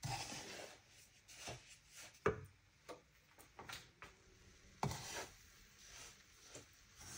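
Wooden spatula stirring and scraping breadcrumbs as they toast in butter in a frying pan: irregular dry scrapes, with two sharper, louder strokes about two seconds in and about five seconds in.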